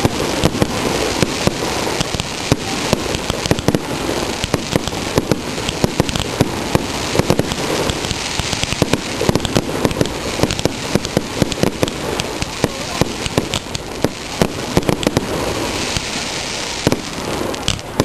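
Fireworks display going off: a dense, unbroken run of bangs and crackles from bursting shells.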